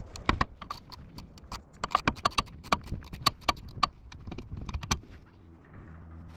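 Metal tools or parts clinking and knocking against each other in an irregular series of sharp clicks, densest in the middle and dying away about five seconds in.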